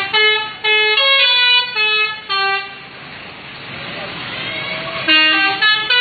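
Bus 'telolet' multi-tone air horn playing a quick tune of short pitched toots. A run of notes lasts about two and a half seconds, then another burst of notes starts about five seconds in.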